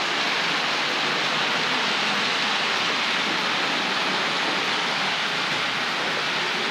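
Hornby OO-gauge LMS Class 5 model locomotive hauling a long rake of coaches: a steady, even rolling noise of the many wheels running on the track.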